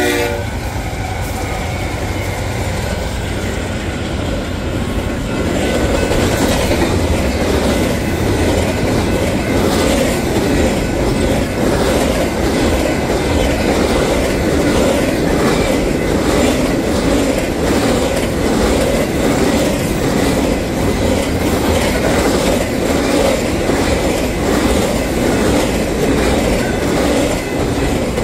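Freight train passing close by at speed: the trailing GE diesel-electric locomotives rumble past first, then about five seconds in the double-stack intermodal cars follow. Their steel wheels run with a steady rumble and a regular clickety-clack.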